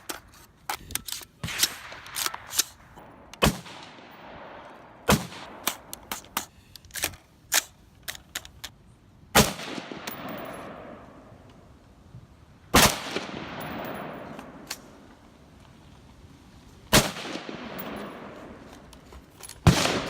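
Rifle shots at an outdoor range: about six loud, sharp shots a few seconds apart, each trailing off in a rolling echo, with many fainter cracks in between.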